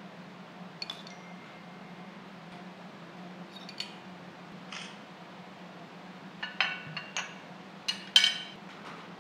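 Metal spoon clinking and tapping against ceramic bowls and a plate: scattered light clinks, one with a short ring, then a busier cluster from about six seconds in, with the loudest clink near the end. A steady low hum runs underneath.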